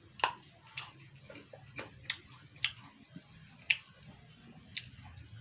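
Close-up chewing of crunchy raw kapokan fruit, sharp crunches and crackles at irregular intervals, roughly two a second.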